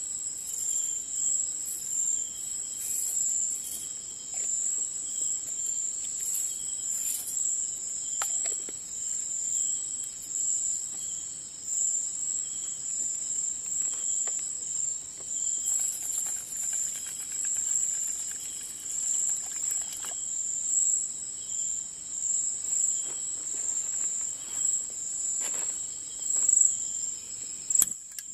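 Night insects trilling steadily at a high pitch without a break, with faint small clinks and handling sounds.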